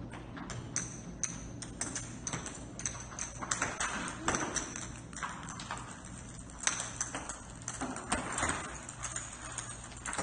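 Hollow plastic golf balls bouncing and rolling on a hard tile floor: a scatter of irregular light clicks and taps.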